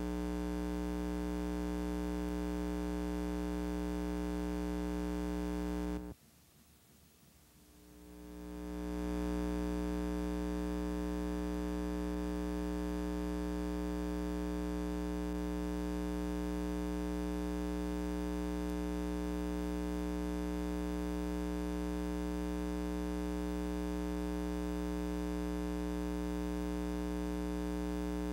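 Steady electrical mains hum with many evenly spaced overtones, the only sound present. It cuts out suddenly about six seconds in and fades back up over the next two to three seconds.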